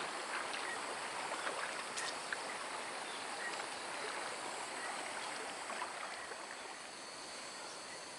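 Steady rush of flowing river water, with a few faint short chirps over it.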